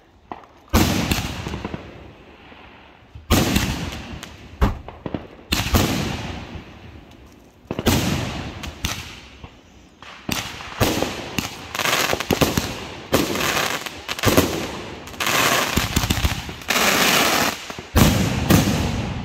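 A consumer firework cake firing aerial shells. Each burst is a sharp bang trailing off in a fading crackle, a couple of seconds apart at first, then coming faster and overlapping through the second half.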